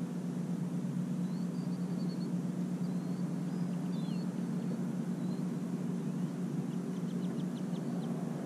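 A steady low hum runs throughout. Over it, faint high bird chirps sound now and then, with a quick run of about six short chirps near the end.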